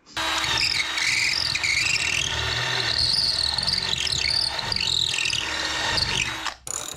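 Power drill running under load for about six and a half seconds, its high whine wavering up and down in pitch, then stopping abruptly.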